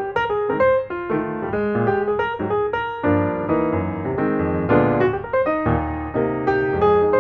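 Background piano music: a quick run of struck notes with chords, with deeper bass notes joining about three seconds in.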